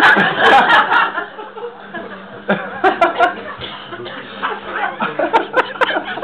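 A small crowd of men laughing and chuckling: a loud burst of laughter at the start, then scattered chuckles and snickers.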